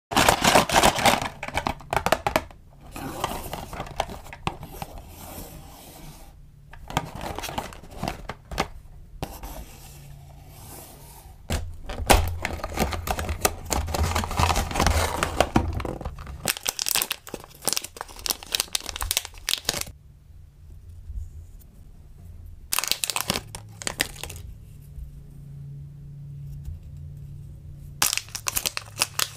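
Hands handling and opening a cardboard toy box, then crinkling and tearing open a printed plastic blind-bag wrapper, in irregular crackly bursts with short pauses between.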